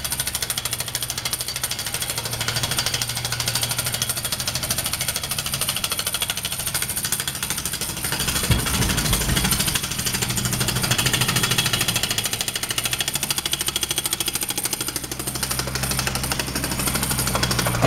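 Jackhammer breaking out old concrete footings, hammering fast and without a break, with a steady engine hum beneath it.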